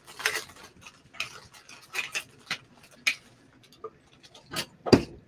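Handling noises from a Funko Soda can and the vinyl figure inside: scattered light clicks, taps and rustles as the figure is taken out and turned over, with a louder knock about five seconds in.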